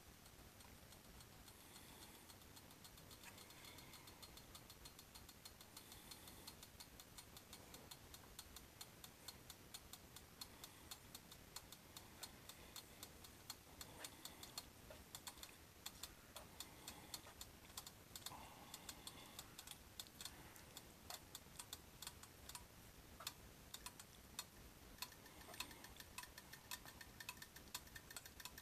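Bulgogi beef frying on an electric hot plate: a faint sizzle with scattered little pops and crackles of spattering juices, which come thicker and faster from about halfway through. The sizzle is low because the hot plate's temperature has dropped.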